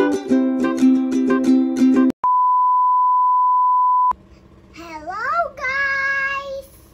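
Upbeat plucked-string intro music that stops about two seconds in, followed by a steady beep lasting about two seconds: the test tone that goes with TV colour bars. A child's voice then calls out a greeting.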